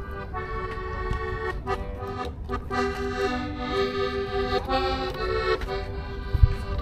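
An accordion playing a melody over held chords, its notes changing every half second or so, with a low rumble underneath. A short thump comes near the end.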